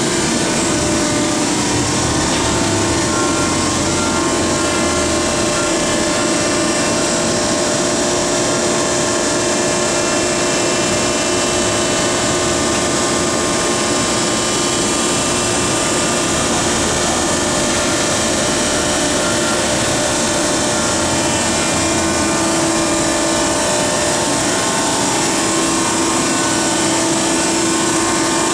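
Harris HRB two-ram horizontal baler's electric-driven hydraulic power unit running: a steady, loud machine drone with a constant whine.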